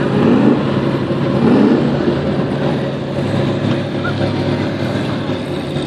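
Ferrari F40's twin-turbo V8 idling steadily, with an even low drone.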